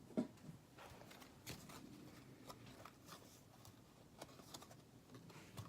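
Faint handling of trading cards: scattered light clicks and short rustles as cards slide and are flipped through, with one sharper tap about a quarter second in.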